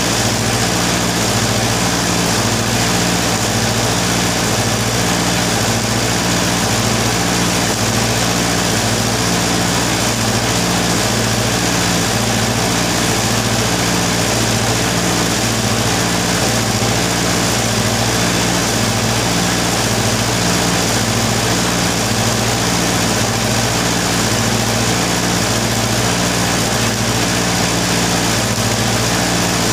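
Arc welding with a stick electrode: the arc crackles and hisses steadily over the loud, even hum of the mains welding transformer.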